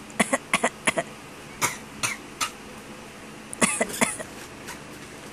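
A series of short coughs in bursts: a quick run of about five, then three single coughs, then another quick run of three or four.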